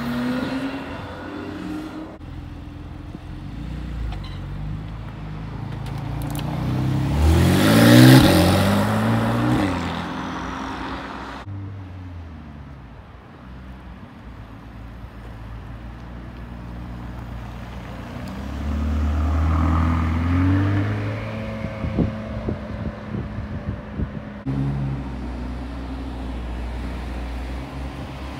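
Sports car engines in several short clips. The loudest, about eight seconds in, is a car accelerating hard past with a steeply rising engine note. Later a car pulls away with rising revs, and near the end a deep engine runs at low speed.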